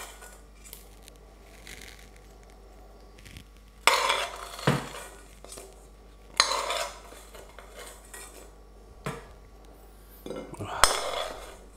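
A metal spoon scraping and clinking against a frying pan as slices of chorizo are spooned out of it, in four short bursts a couple of seconds apart, with one sharp clink about five seconds in.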